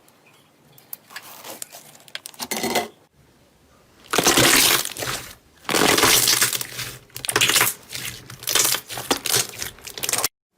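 Crunchy slime being squeezed and pressed, crackling and popping in several long bursts, loudest from about four seconds in; it cuts off abruptly near the end.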